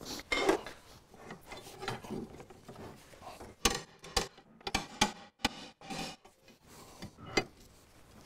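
Steel pry bar levering and scraping against a seized splined steering arm on a Land Rover Series III: a run of sharp metallic clinks and knocks with brief ringing, thickest in the second half. The arm is stuck fast on its splines and barely moves.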